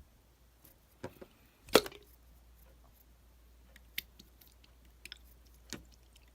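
Slime being pressed and squeezed by hand, giving a few scattered sticky clicks and pops, the loudest a little under two seconds in.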